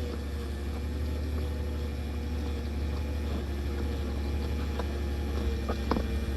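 Engine of a boom-mounted post-hole auger rig running steadily with a low drone, with a few light knocks near the end.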